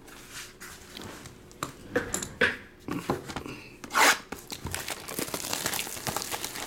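Clear plastic shrink wrap on a trading-card box being slit and torn open, with a sharp rip about four seconds in, then dense crinkling as the loose wrap is pulled off.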